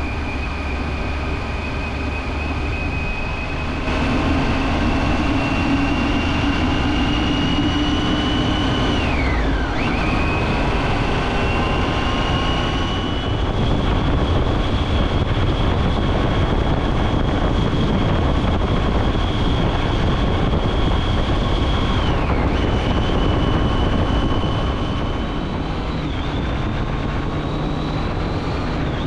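Triumph Tiger 800 XCA's 800 cc inline-three engine pulling on the move: its pitch climbs steadily and falls sharply with each of three upshifts. Wind rushes over the microphone underneath.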